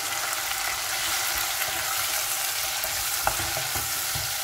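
Freshly added diced tomato and green pepper sizzling in hot oil in a granite-coated pot while being stirred with a wooden spoon, with a steady frying hiss. The spoon scrapes and knocks against the pot, with one sharper knock a little over three seconds in.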